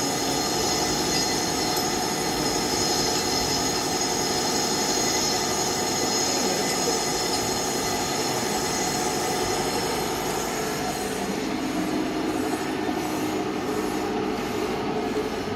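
Large engine lathe turning a ship engine's chrome cylinder liner, the cutting tool on the metal giving a steady metallic machining noise with several steady high tones. About ten seconds in, the high tones fade and a lower hum comes forward.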